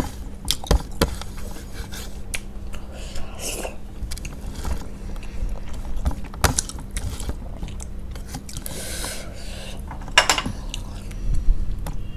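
Close-miked chewing and mouth sounds of someone eating rice and curry, with many short wet smacks and clicks scattered through and a few brief louder patches.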